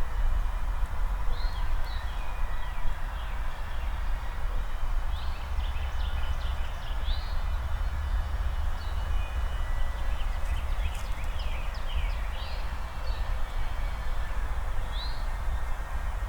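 Songbirds chirping, with many short, quick notes repeated throughout, over a steady low rumble.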